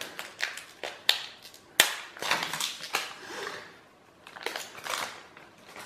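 Foil trading-card pack wrapper crinkling and crackling in the hands, with several sharp crackles, the sharpest a little under two seconds in.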